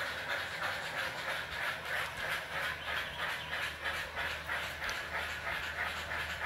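Digital sound decoders in HO-scale brass Western Maryland H-9 steam locomotives playing rhythmic steam exhaust chuffs, about three to four a second, as the model train runs, with a steady low hum underneath.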